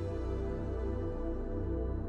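Slow ambient background music: sustained layered tones over a steady low bass.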